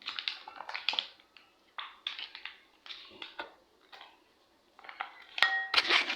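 Mayonnaise being squeezed out of a soft pouch in a series of short, noisy spurts, with a sharp click and a brief squeak near the end.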